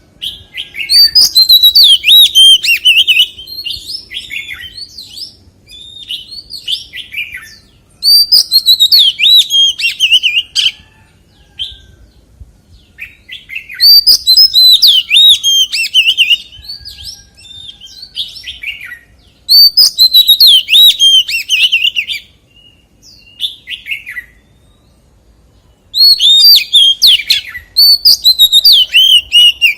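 Oriental magpie-robin singing: loud phrases of rapid, varied whistled notes, each two to three seconds long, repeating about every six seconds, with softer notes in between.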